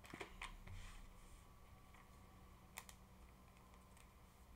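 Near silence with a few faint clicks and taps of trading cards being handled over a playmat.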